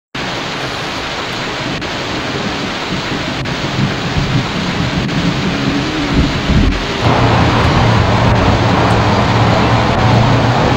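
Rain pattering on a car's windscreen and roof in a thunderstorm, with a low rumble about six seconds in. About seven seconds in the noise steps up louder and a steady low hum joins it.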